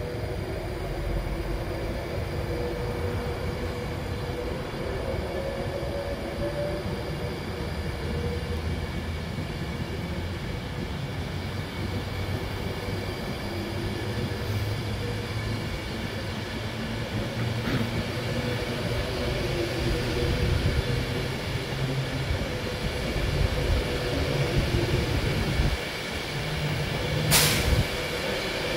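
Avanti West Coast Class 390 Pendolino electric train running past the platform: a steady rumble of wheels on rail with a faint electric whine from the traction gear. A single sharp clack comes near the end.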